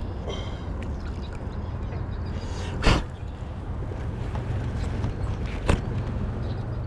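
Two sharp knocks, the first about three seconds in and a weaker one near six seconds, over a steady low rumble.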